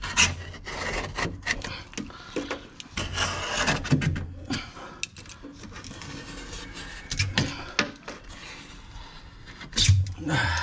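Utility knife blade cutting and scraping along the edges of rubber stair treads in a bus's steel stairwell, making a run of short scrapes and knocks. A louder scrape and knock comes near the end.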